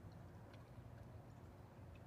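Near silence: a faint steady low rumble of background noise, with a few soft ticks about half a second in and near the end.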